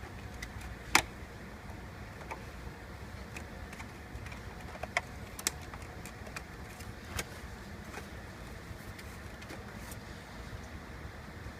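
Sharp plastic clicks and snaps as the back cover of a Gateway ZX6961 all-in-one computer is pried loose from its clips: one loud snap about a second in, then several smaller clicks scattered after, over a steady low hum.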